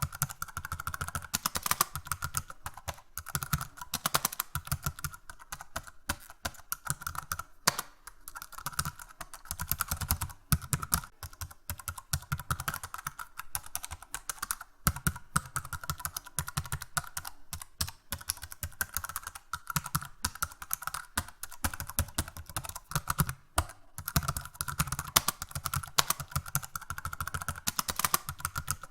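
Fast, hard typing on a computer keyboard: a dense run of rapid key clicks with brief pauses now and then.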